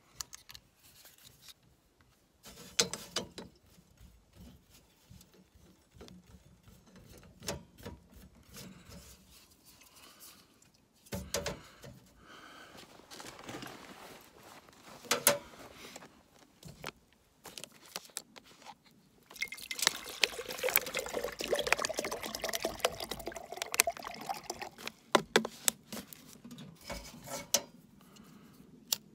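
Clicks and knocks of an MSR stove's metal burner being fitted onto its gas canister. About two-thirds of the way through, water pours into the stove's pot for around five seconds, rising in pitch as it fills.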